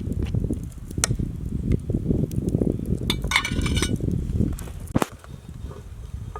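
Clinks and knocks of metal cookware or utensils, with a short rattling clatter in the middle, over a dense low rumble.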